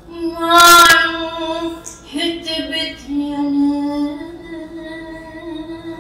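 An elderly woman singing verses slowly, voice alone, holding long notes. The loudest note comes about a second in. She herself says her aged voice no longer supports her well.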